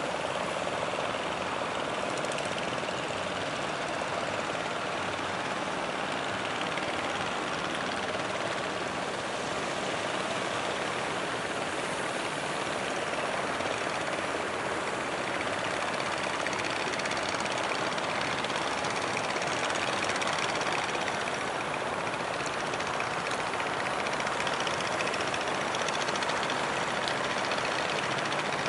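Engines of motor fishing boats running steadily under way, a dense even drone without breaks.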